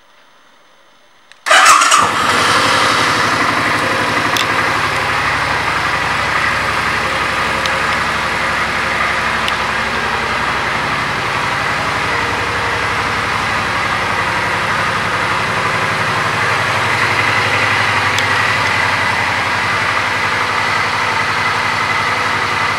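2006 Suzuki Boulevard C50T's 805 cc V-twin starting about a second and a half in, loudest as it fires and catches at once, then idling steadily.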